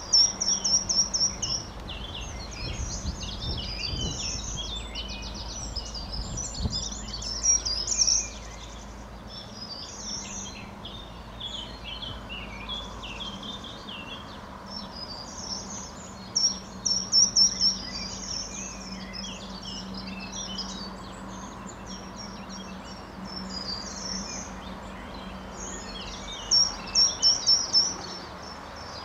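Several songbirds singing together, with a loud short phrase of quick repeated high notes heard three times, at the start, about halfway through and near the end. A faint low steady hum runs underneath.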